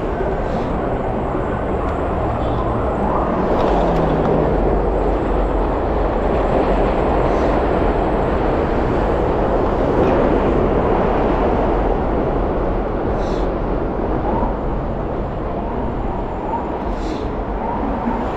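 Steady rush of wind buffeting the microphone, with road and tyre noise, while riding a Segway Ninebot Max electric scooter along a city street among traffic.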